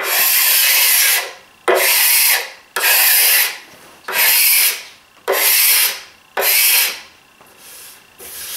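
Steel card scraper drawn across dried finish on a plywood cabinet top: six rasping pull strokes, roughly one a second, then a softer short one near the end. It is shaving down the dried coat of finish between coats instead of sanding it, dragging more where the finish is thick.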